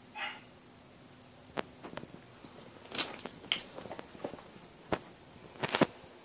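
A cricket chirping in a steady high trill, over a handful of sharp clicks and knocks from the phone being handled and swung around, the loudest just before the end.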